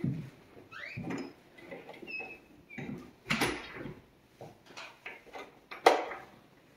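Footsteps on a hardwood floor with scattered creaks and knocks, including a few short squeaks. There is one sharper knock about six seconds in.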